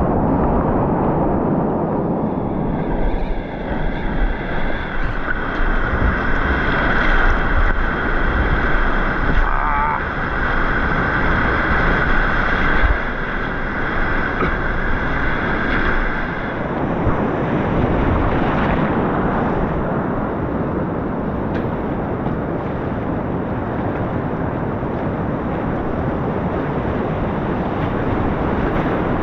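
Whitewater rapids rushing loudly around a kayak, with wind buffeting the camera microphone. A steady high tone sounds over the water for the first half and cuts off past the middle.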